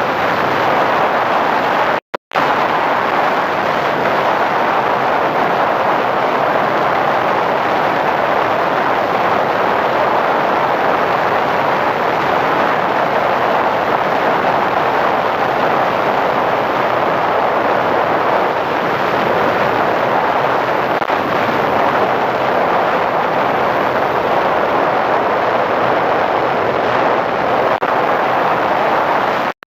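Steady rushing of wind and propeller noise from a radio-controlled P-51 Mustang model in flight, as picked up by its on-board FPV camera. The sound cuts out for a split second about two seconds in.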